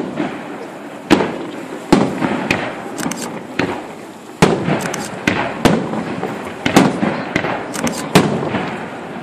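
Aerial firework shells bursting in quick, irregular succession, a sharp bang every half second to second, with crackle and rumble between the bangs.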